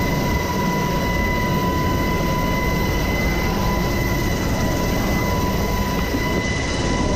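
Helicopter running steadily at close range: heavy rotor and engine noise with a steady high turbine whine over it.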